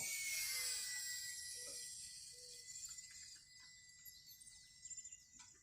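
Small electric RC warbird's motor and propeller whine, a thin steady tone that drops slightly in pitch in the first second and then fades as the plane flies farther off.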